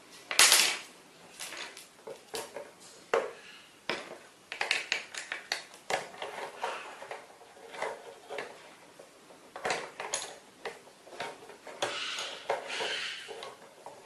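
A Goffin's cockatoo working at a puzzle box with a wooden stick and its beak: irregular clicks, taps and scrapes against the box's wire mesh, wood and acrylic. The loudest is a sharp knock about half a second in, and there is a rougher scraping stretch near the end.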